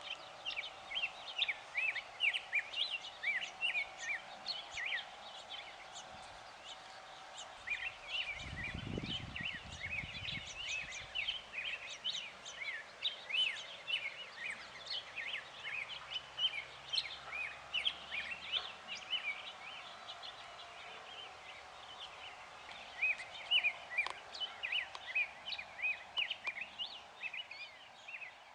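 A chorus of small songbirds chirping and singing, many short quick chirps overlapping, over a faint steady background hum. A brief low rumble comes about nine seconds in.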